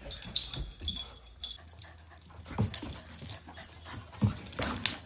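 A Siberian husky and a Shiba Inu play-fighting, with short dog vocalizations in irregular bursts, the loudest about two and a half and four seconds in.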